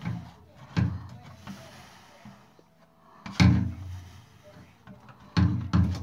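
About five hollow knocks and clunks as the washer's cabinet and parts are handled, each sharp at the start and ringing briefly. The loudest comes a little past the middle.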